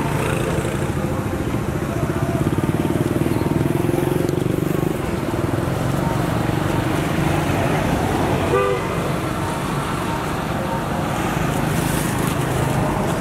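A vehicle engine running steadily, with a brief pitched sound about eight and a half seconds in.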